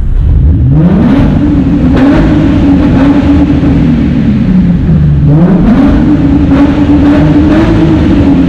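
2005 Infiniti G35's VQ35DE V6 with its muffler deleted, running straight-piped exhaust, heard from inside the cabin under acceleration: the engine revs up and holds, drops away about five seconds in, then revs up again and holds before easing off near the end.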